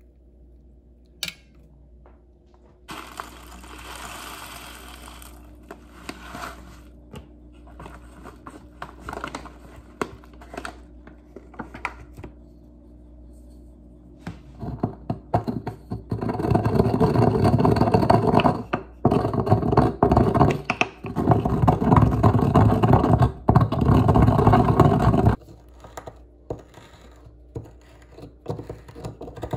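Bamboo pestle grinding in a bamboo mortar: a dense, rough scraping in long stretches with short breaks, preceded by a sharp tap and scattered knocks as the pestle and mortar are handled.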